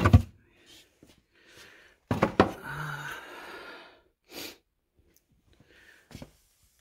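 Handling noise from rummaging among stored furniture and boxes: a thump at the start, then sharp knocks about two seconds in, followed by a couple of seconds of rustling, breathy noise, and a soft click near the end.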